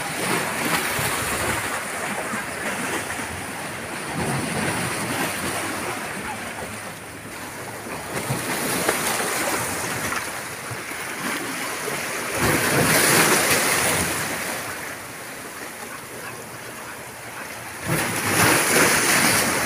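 Sea waves washing and splashing against shoreline rocks, a steady wash of water with two louder surges of breaking water, one a little past the middle and one near the end.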